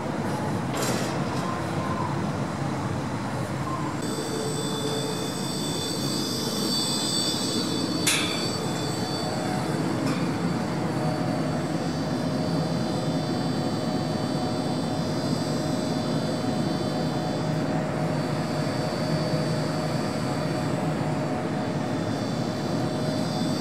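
Rooftop air-conditioning plant running: a steady mechanical hum and rush, with several high steady whines joining a few seconds in. A sharp click sounds about 8 seconds in.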